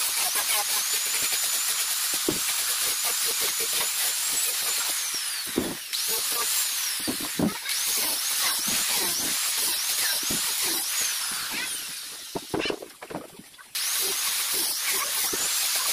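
Electric angle grinder fitted with a 60-grit sanding disc, sanding plywood at a high whine. Its pitch sags and recovers over and over as the disc is pressed into the wood. Near the end it drops away for a moment, then comes back at full speed.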